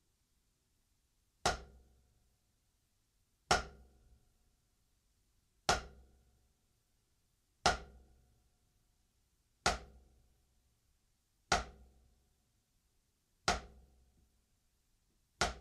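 Drumsticks striking a drum practice pad in single strokes, eight hits about two seconds apart. They are downstrokes: after each hit the stick is stopped just above the pad instead of bouncing back up.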